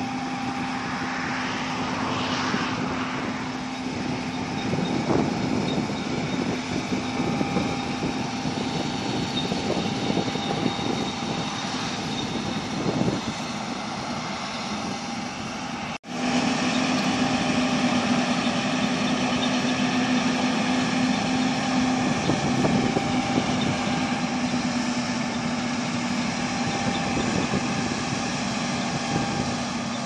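John Deere S780i tracked combine harvester running while combining wheat: a steady engine and machinery drone with a held hum. It cuts out abruptly about halfway through and comes back louder.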